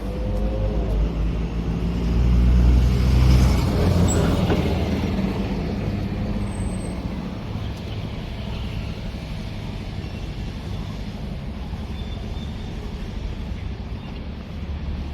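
A motor vehicle running, with its engine's steady low hum and road noise swelling to the loudest point about three seconds in, then easing to a steady level.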